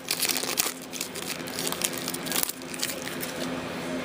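Crinkling and rustling of Upper Deck SP Authentic hockey card packs and cards being handled, busiest for about the first two and a half seconds, then quieter.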